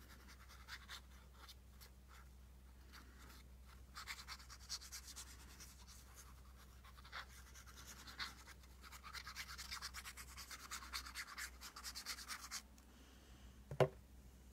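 Glue being spread onto paper in quick back-and-forth scratchy strokes, in short bursts about four seconds in and again for a few seconds later on, followed by a single sharp tap near the end.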